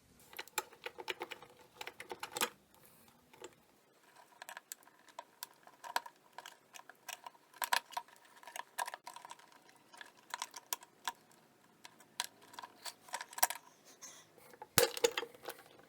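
Plastic pigtail wiring connectors being pulled off a refrigerator's electronic control board: a long run of irregular small plastic clicks and rattles, with a louder couple of clicks near the end.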